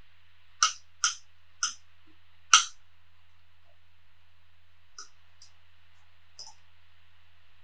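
A metal fork clicking against a plate while picking up onion rings and herring: four sharp clicks in the first three seconds, the last the loudest, then a few fainter ones, over a low steady hum.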